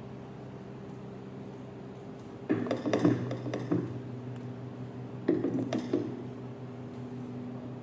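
Clinking sounds in two short clusters, about two and a half and five seconds in, over a steady low hum.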